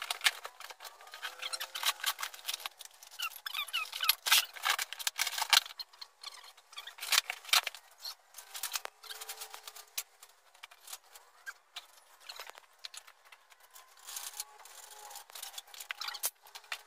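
Cardboard shipping box being torn open and pulled apart: crackling, rustling and tearing of cardboard, with scattered knocks from handling the packing, busiest in the first half and sparser later.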